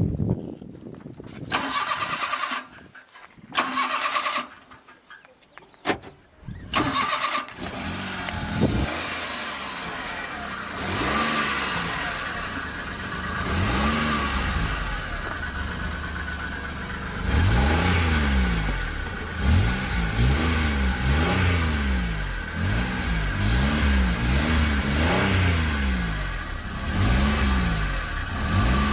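Small petrol car engine being started: the starter cranks in two short bursts, the engine catches after about seven seconds, and it is then revved again and again by pumping the accelerator, each rev rising and falling in pitch, coming in quick succession over the last ten seconds.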